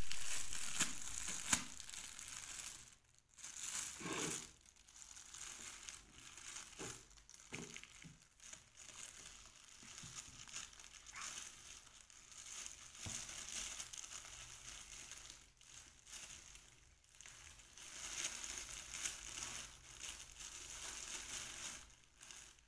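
Clear plastic bag crinkling and rustling in irregular spells as small hands handle it and pull it open to get a leaf-wrapped cake out.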